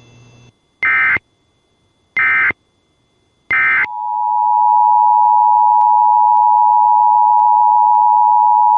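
Emergency Alert System data signal: three short, loud bursts of buzzy digital tones about a second and a half apart. About four seconds in, the steady two-tone EAS attention signal starts and holds without a break.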